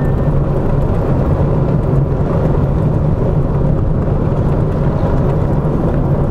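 Steady road and engine noise inside a moving Ford Fiesta's cabin: a low, even drone with tyre rumble.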